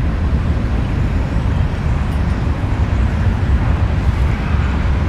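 Oxy-acetylene welding torch flame burning with a steady rushing noise that is strongest low down, set to a neutral flame.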